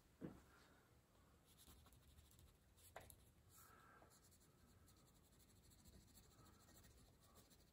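Faint scratching of a wax crayon rubbed back and forth on paper while colouring, with a soft tick about three seconds in.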